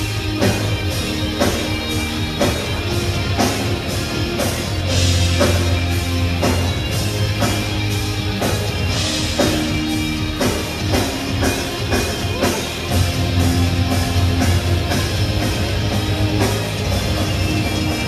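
Live rock band playing loud electric guitars over a drum kit, with a steady beat of about three drum strikes a second.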